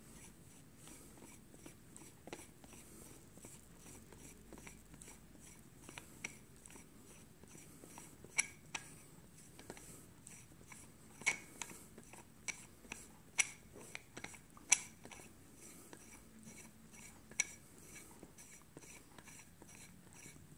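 Faint handling sounds of a Dan Wesson .44 Magnum revolver's barrel being turned by hand to unscrew it from the frame: a scattering of sharp clicks and ticks, bunched in the middle stretch.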